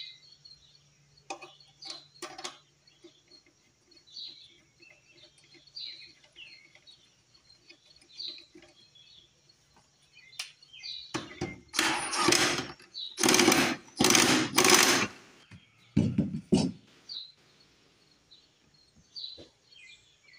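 Impact wrench hammering the mower's blade bolt tight: five short rattling bursts past the middle, then two brief ones. Small birds chirp faintly in the background.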